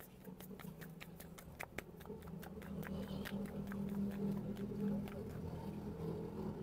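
Paratha dough being slapped and flattened between the palms by hand: a quick, even run of soft slaps, about five a second, thinning out after about three and a half seconds. A low steady hum grows underneath.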